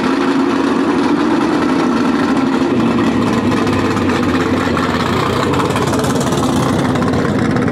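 A 1955 Chevrolet gasser's engine running loudly as the car rolls slowly past at low speed. Its steady note changes about three seconds in as the car draws alongside.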